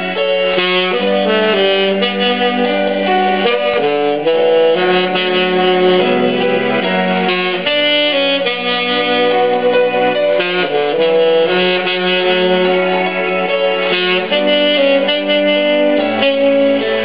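Tenor saxophone playing a melody in long held notes over a backing accompaniment.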